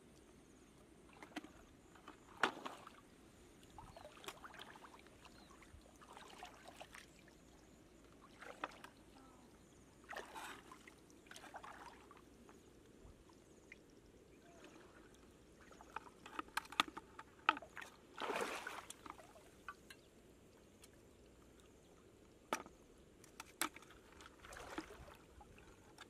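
Shallow water splashing and sloshing in short bursts every second or two as a person wades and reaches into it to pick things out, with scattered sharp clicks among them.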